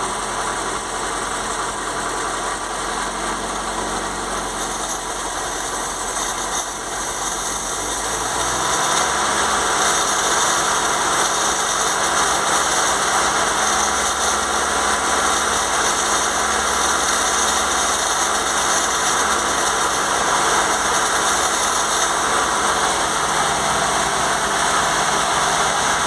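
FSC Żuk's four-cylinder petrol engine idling, then brought up to a faster, louder steady run about eight seconds in and held there. It is running on a dose of ATF through the carburettor, a smoke test for exhaust-manifold leaks.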